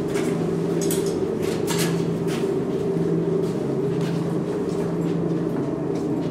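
Steady low mechanical hum of building machinery, with footsteps and a few light knocks in the first couple of seconds.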